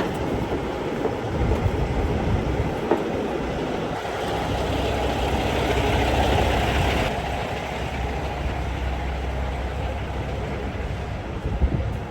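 Heavy diesel engine running with a steady low rumble, growing louder about four seconds in and easing off again after about seven seconds.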